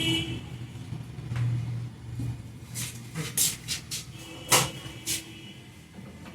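A vehicle horn cuts off just after the start, then a series of about six short, sharp clicks or slaps follows, the loudest about four and a half seconds in.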